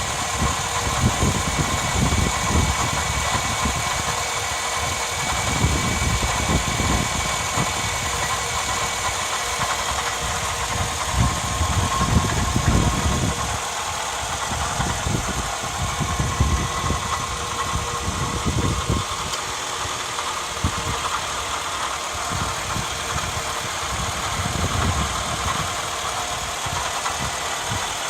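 Toyota Alphard (10 series) engine idling with a steady high whine from its V-belt tensioner, and an uneven low rumble underneath. The whine is the abnormal noise of a failed V-belt tensioner.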